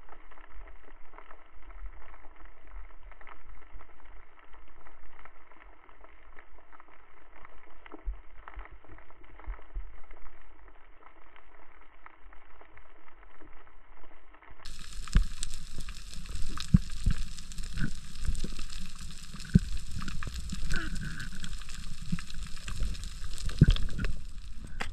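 Muffled underwater noise picked up by a diving camera: a steady wash of water with scattered small clicks and knocks. About halfway through it turns fuller and louder, with more low knocks.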